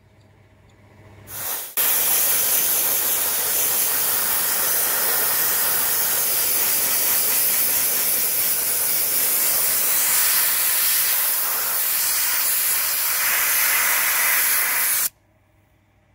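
Compressed-air soda blaster spraying bicarbonate soda onto a motorcycle's aluminium frame and engine cases: a brief spurt about a second and a half in, then a steady loud hiss of air and grit for about thirteen seconds that cuts off suddenly.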